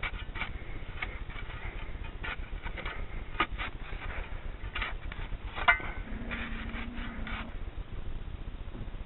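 A run of short scrapes and rubbing knocks, irregular and sharp, with a low steady hum lasting about a second and a half after the middle.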